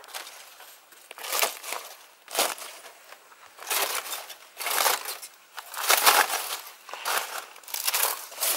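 Aluminium foil and charred leaf wrapping crinkling and crackling in irregular handfuls, as the wrapping is pulled back from a whole fish that has been smoked over a fire.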